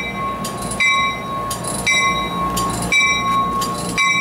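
NJ Transit commuter train's bell ringing steadily, about one stroke a second, each stroke ringing on. Under it runs a steady high-pitched whine.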